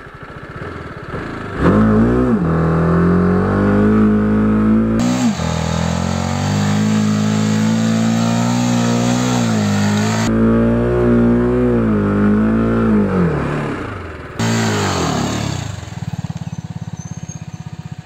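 Motorcycle engine revved hard through loose sand. It climbs sharply about a second and a half in, then is held at high revs, sagging and picking up again several times as the wheel churns. The sound cuts abruptly to a different take a few times and ends in a lower, fast-pulsing run.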